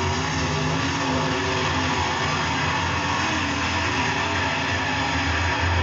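Super late model dirt-track race cars' V8 engines running at speed around the oval, a steady loud engine drone.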